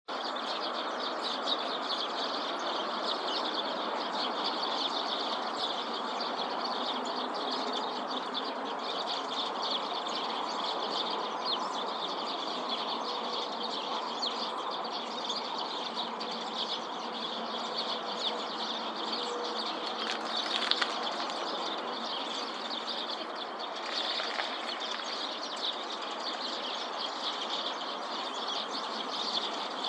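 A flock of Eurasian tree sparrows chirping constantly, many short calls overlapping into a steady chatter, over a steady low background noise.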